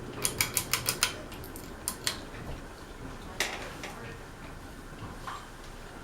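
A quick run of about six sharp clicks and rattles, then two more clicks and a single louder one, as the ceiling fan is being switched into reverse.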